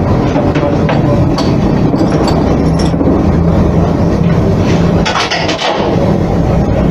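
A loud, steady low mechanical hum and rumble, with a few light metallic clinks in the first half.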